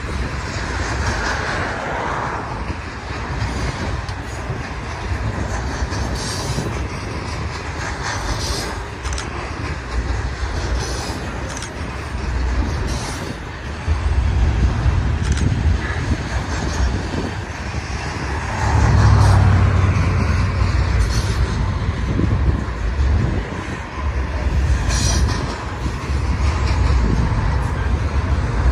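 Double-stack intermodal well cars of a BNSF freight train rolling past as the train gets under way, a steady low rumble of wheels on rail. Occasional short sharp clicks come from the wheels and cars, and the rumble swells about halfway through.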